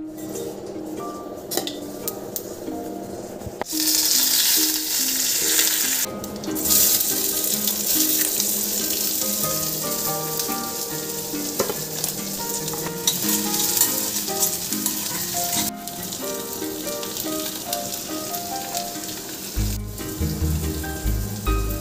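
Chopped onions and curry leaves frying in hot oil in a steel kadai, a steady sizzle that starts suddenly about four seconds in and runs with a few short breaks. Soft background music with plucked notes plays underneath.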